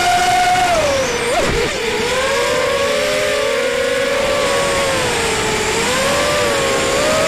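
ZMR250 racing quadcopter's four T-Motor 1806 2300Kv brushless motors spinning 5x4.5 props, a whine of several close pitches rising and falling together with the throttle, with a quick dip and recovery about a second and a half in. Heard from the camera on board, with a rush of noise under it.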